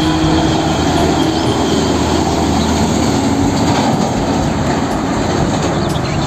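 Hino semi-trailer tanker truck driving past: steady diesel engine and tyre noise.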